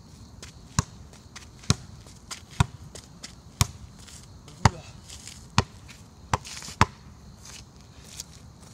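A soccer ball being juggled on the outside of the left foot: about eight sharp kicks, roughly one a second, then the kicks stop.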